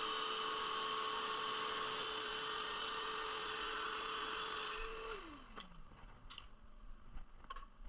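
Scroll saw running steadily, then switched off about five seconds in, its pitch falling as the motor winds down, followed by a few light clicks.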